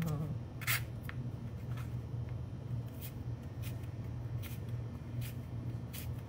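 Chef's knife slicing carrots on a plastic cutting board: sharp chops about once a second, over a steady low hum.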